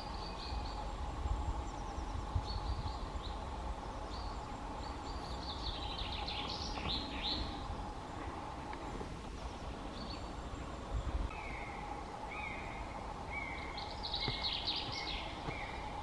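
Woodland birds calling: scattered high chirps and short trills, with a run of short whistled notes in the last few seconds. A faint steady hum runs beneath.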